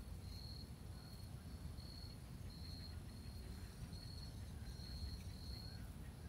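Insect chirping: a high, steady trill in short repeated bursts, over a low, steady rumble.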